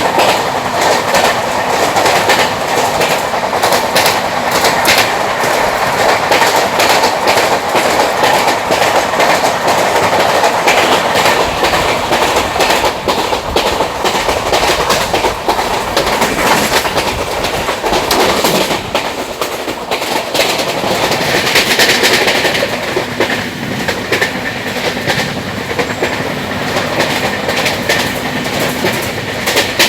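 A train running along the track, its wheels clattering over the rail joints in a dense run of clicks above a steady rumble of noise.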